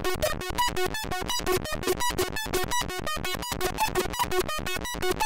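Eurorack modular synth voice: two Brooks oscillators folded through the After Later Valley wavefolder, playing a quantized stepped sequence of short notes, about five a second, jumping in pitch. The notes are bright with many overtones, their timbre shifting under LFO modulation of the folds.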